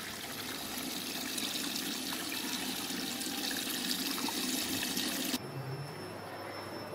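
Water rushing into a Domus commercial washer extractor through its detergent dispenser as the machine fills for a cold pre-wash. The rush cuts off suddenly about five seconds in.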